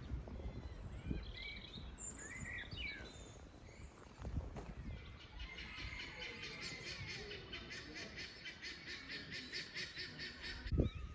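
Farmyard fowl calling: a few scattered chirps, then from about halfway a fast run of repeated call notes, several a second, that stops shortly before the end.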